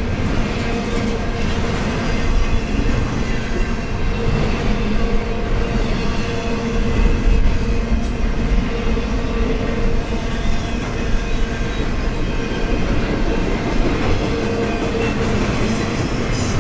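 Double-stack intermodal freight cars rolling past: a continuous rumble and clatter of steel wheels on the rails, with a steady hum underneath.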